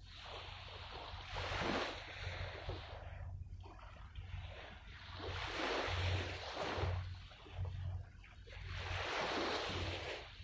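Sea water washing against the shore, surging and fading every few seconds, with wind rumbling on the microphone.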